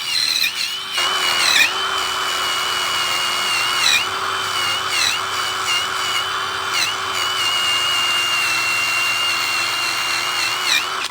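Electric drill spinning a wire wheel against rusty metal, stripping the rust: a steady motor whine that dips briefly in pitch several times as the wheel is pressed into the metal, over the scratchy hiss of the wire bristles. It stops suddenly at the end.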